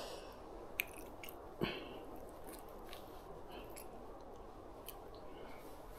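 Faint handling noise as a small trout is unhooked by hand: a few scattered soft clicks and rustles over a low background hiss.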